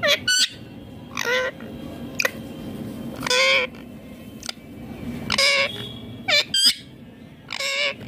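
Indian ringneck parakeet giving short, repeated calls, one every second or two, each a brief wavering squawk.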